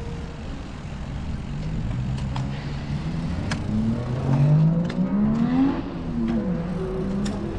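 A motor vehicle's engine accelerating, its pitch rising for a couple of seconds and then dropping as it goes by, over a steady low rumble.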